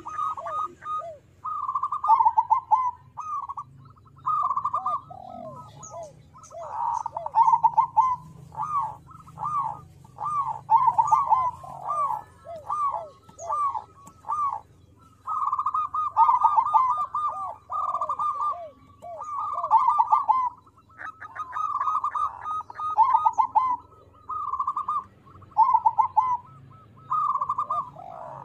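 Crossbred zebra dove (perkutut krosing) cooing: phrase after phrase of quick, rolling coo notes, with a short break about halfway through.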